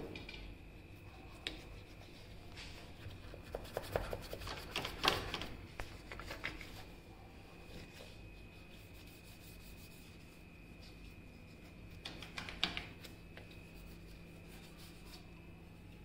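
Stiff brush dipped in white vinegar scrubbing grime off a dishwasher's surface, in bursts of quick scratchy strokes about three to six seconds in and again around twelve seconds in. A faint steady hum runs underneath.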